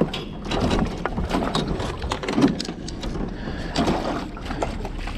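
Irregular splashing and knocks of water against a small aluminum boat's hull as a hooked brown trout thrashes at the surface beside the boat.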